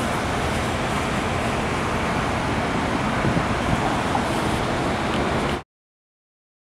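Steady roar of city traffic, an even wash of noise with no distinct events, which cuts off suddenly into silence about five and a half seconds in.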